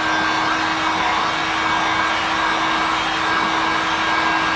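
Handheld electric heat gun blowing hot air steadily, a constant rushing whirr with a steady motor hum, force-drying fresh touch-up paint on a car panel.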